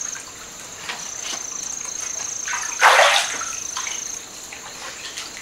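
Bathwater splashing briefly about three seconds in as the bather lifts her arms out of the tub. Under it runs an insect's high, steady trill, which stops near the end.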